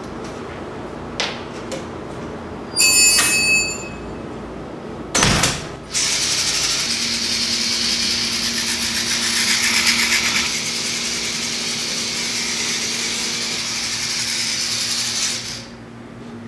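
Vaterra Slickrock RC rock crawler driving across a tile floor: a short scrape about three seconds in and a sharp knock about five seconds in, then its electric motor and gears whining steadily until the whine stops near the end.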